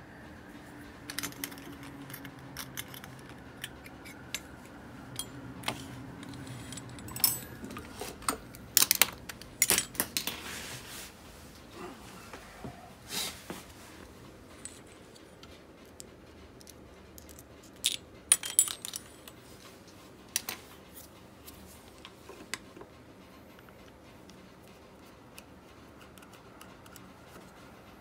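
Irregular small metallic clicks and clinks from an Abu Garcia Ambassadeur 1500C baitcasting reel being handled. The clicks come in loose clusters, loudest about a third of the way in and again about two-thirds in, and thin out to faint ticks near the end.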